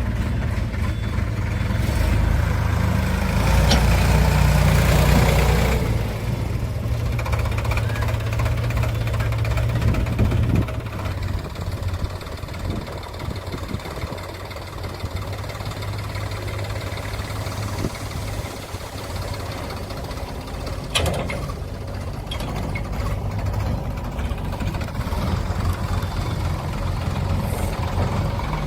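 Heavy diesel engine running, louder for a few seconds near the start, then dropping to a quieter steady run after about ten seconds. One sharp knock about two-thirds of the way through.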